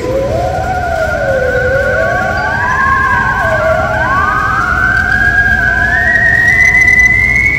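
Electronic sci-fi UFO sound effect from a 10-foot animated alien Halloween prop's built-in speaker: a sliding tone that swoops up and down in pitch and climbs steadily higher, over a fast warbling tone.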